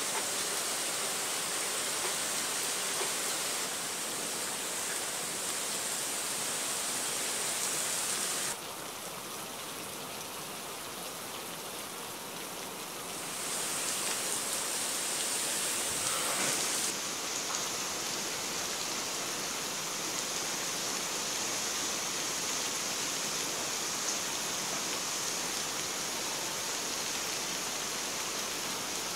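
Steady rain falling and splashing into standing water on a sidewalk and lawn, an even hiss of drops. The hiss changes abruptly in level and tone about 8 seconds in, again around 13 seconds and once more around 17 seconds.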